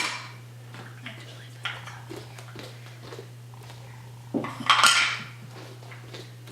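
Clinks and clatters of small hard objects being handled, with a few light clicks and a louder clatter about four to five seconds in, over a steady low hum.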